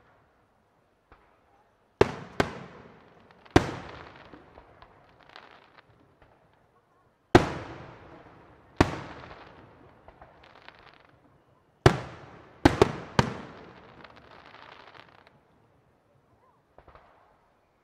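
Aerial firework shells bursting overhead: about eight sharp bangs in three groups, each echoing away.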